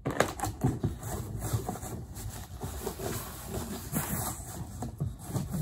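Disinfecting wipe being pulled out and rubbed over a cardboard box: irregular scuffing and rustling of the wet cloth on the cardboard.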